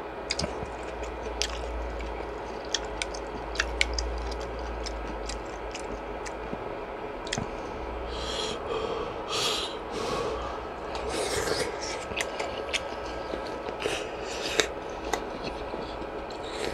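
Close-miked eating sounds: chewing fish cake from skewered eomuk soup, with many small sharp clicks and a few longer breathy sounds in the second half.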